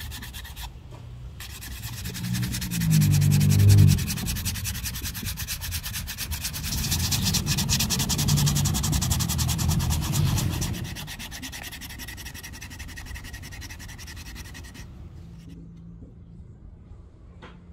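Ebony wood axe handle being sanded: a steady scratchy rubbing that grows heavier and louder twice, then stops about fifteen seconds in.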